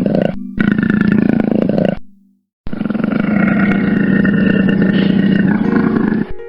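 Lion growling and roaring, a rough, pulsing low rumble in three stretches broken by short silences, the last and longest about three and a half seconds.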